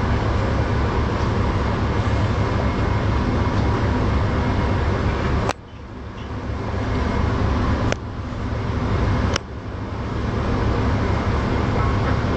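Steady rumble of a tour ferry under way. The sound drops away suddenly three times, in the middle and a little later, and swells back up over a second or two each time.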